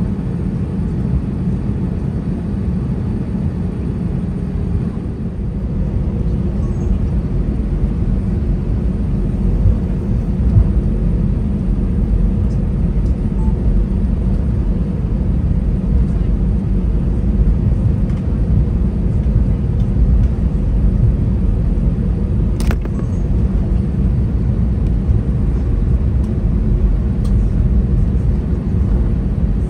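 Airbus A320 cabin noise while taxiing: the steady low rumble of the engines at taxi power, heard from a window seat beside the wing. There is a single sharp click about three-quarters of the way through.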